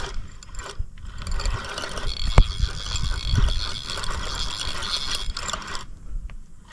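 Fishing reel being cranked with a steady gear whir and ratchet-like clicking as a heavy turtle hooked on the line is reeled in. The cranking stops about six seconds in.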